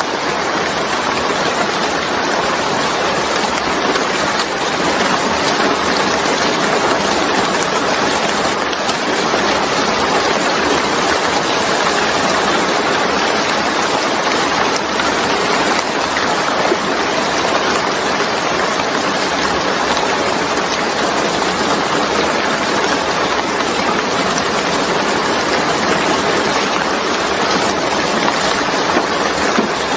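Steady heavy rain: an even, unbroken hiss of falling water.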